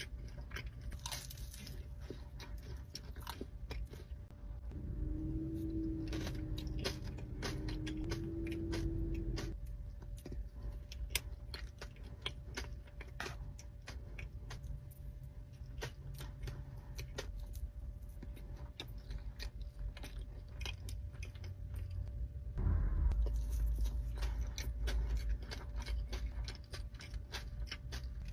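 Close-up eating sounds: a person biting into and chewing a crunchy dessert, with many sharp crunches and clicks.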